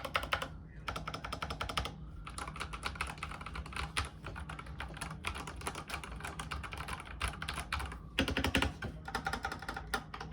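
Fast typing on an IQUNIX OG80 Darkside mechanical keyboard with TTC Silver linear switches: a dense, continuous stream of keystrokes, called 'very thocky'. A louder flurry of strokes comes about eight seconds in.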